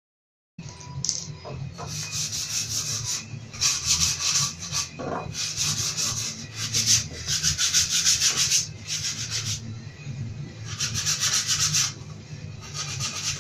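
Hand-sanding the edge of a plywood panel: bursts of rapid rasping strokes, each about a second long with short pauses between, over a steady low hum.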